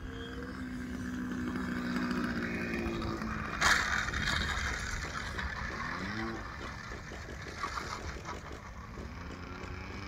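Small engine of a radio-controlled model biplane running at low throttle as it comes in to land, with one sharp knock about three and a half seconds in as it touches down. Around six seconds in, the engine pitch rises and falls briefly as the throttle is blipped while it rolls along the runway.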